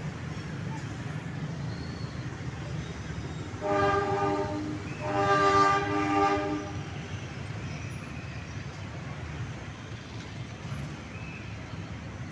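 Diesel locomotive sounding its horn twice, a short blast then a longer one about a second later, over the steady low rumble of its engine while it shunts tank wagons.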